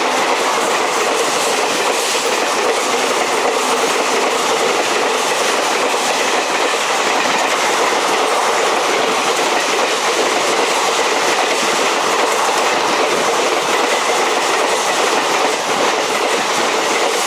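Coaches of an express passenger train running past at speed: a steady rush of wheel-on-rail noise that eases slightly near the end.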